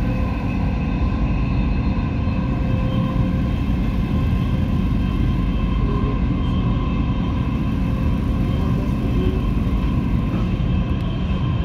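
Inside a Dubai Metro carriage running at steady speed: a steady rumble of the train on the track, with a constant hum of several steady tones from its running gear.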